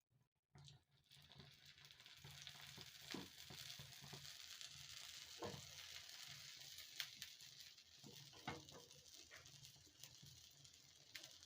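Set dosa batter sizzling faintly on a hot griddle, starting about a second in, with a few light clicks and taps.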